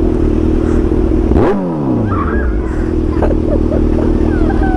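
Kawasaki Z1000's inline-four engine idling, with one quick throttle blip about a second and a half in: the revs shoot up and fall straight back to idle.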